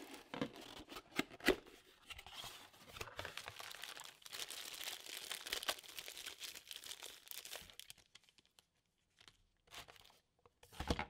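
Crinkling plastic wrapping and rustling cardboard packaging as a new electric fuel pump is unpacked from its box. The crackling stops about eight seconds in, followed by a few light knocks and a thump near the end.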